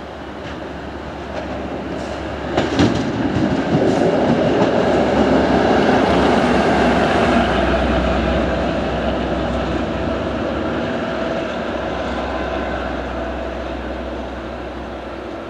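A train passing on the track. Its noise builds, a quick run of wheel clacks over rail joints comes about three seconds in, and then the running noise holds loud for a few seconds before slowly fading away.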